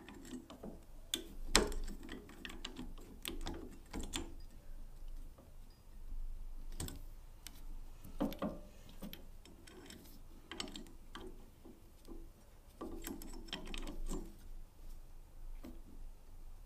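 Irregular metal clicks and clunks from a drill press chuck as its chuck key is turned in the geared teeth and the chuck is handled to tighten a drill bit. One sharp click stands out about a second and a half in, and lighter clicks and handling noises come and go after it.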